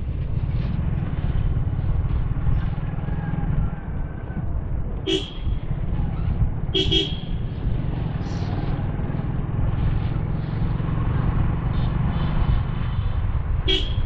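Motorcycle riding through town traffic, heard as a steady rumble of wind and engine on the camera microphone. Short horn toots sound about five seconds in, a double toot about seven seconds in, and another near the end.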